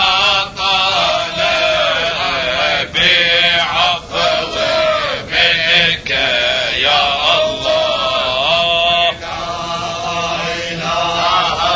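Male voices chanting an Islamic tahlila, devotional praise of God, in long ornamented phrases broken by short pauses.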